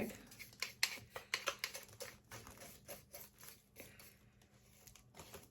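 Light, irregular taps and scrapes as ground coffee is brushed out of an electric coffee grinder's cup into a plastic bag, thinning out over the last couple of seconds.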